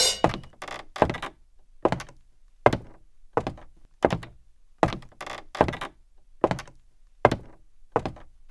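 A steady series of hollow knocks, about a dozen, roughly one every three-quarters of a second, each with a short ringing tail.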